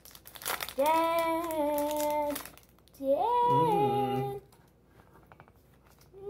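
A child singing two long held notes, each about a second and a half long, the second swooping up at its start. Faint clicks and rustles of cards being handled follow.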